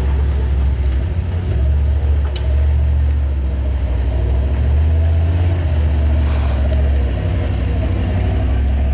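Engine of a short-wheelbase Toyota Land Cruiser 70-series running steadily at low revs as the 4x4 crawls down a steep muddy track and draws up close. There is a brief hiss about six seconds in.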